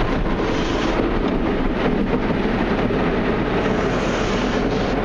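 Ryko SoftGloss XS 2.0 automatic car wash brushes scrubbing the car under soapy water spray, heard from inside the car's cabin as a steady, loud wash of noise.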